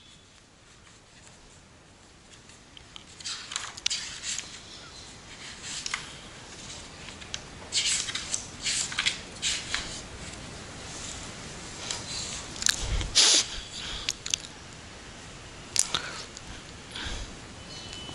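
Irregular rustling and clicking handling noises that start a few seconds in, with a louder knock about two-thirds of the way through.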